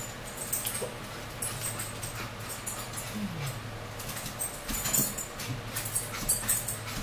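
Close-up chewing and lip-smacking of people eating sausage-and-bagel sandwiches: scattered small wet mouth clicks over a steady low hum, with one short low falling hum about three seconds in.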